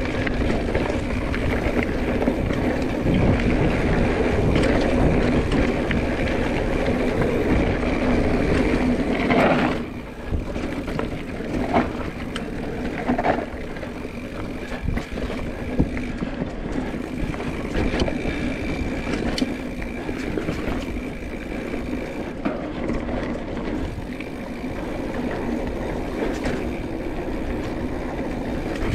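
A mountain bike ridden on a singletrack trail: steady wind noise on the microphone and tyre rumble over the trail, with scattered clicks and rattles from the bike. The noise is louder for the first ten seconds, then drops and stays lower.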